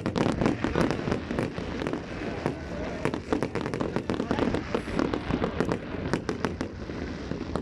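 Fireworks going off in a rapid, irregular string of sharp bangs and crackles over a continuous low rumble.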